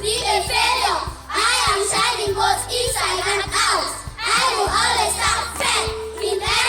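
A group of young children singing together over background music with a steady beat.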